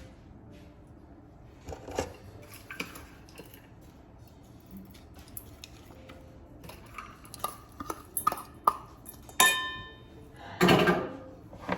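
Dishes and cutlery being handled: scattered clinks and knocks, one clink that rings briefly, and a louder clatter near the end.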